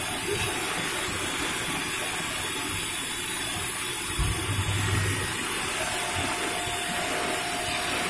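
Pneumatic (compressed-air) vacuum cleaner running with a steady hiss as its hose nozzle sucks up small bits of debris, with a brief low bump a little past the middle.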